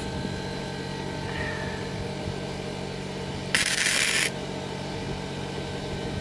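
MIG welder arc crackling in one short burst of under a second, about three and a half seconds in, as a pinhole in a welded steel exhaust pipe is sealed. A steady low hum runs underneath.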